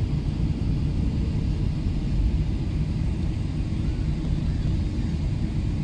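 Steady low cabin rumble of an Airbus A380-861 taxiing, its Engine Alliance GP7200 engines running at low power, heard from a window seat inside the cabin, with a faint steady hum under the rumble.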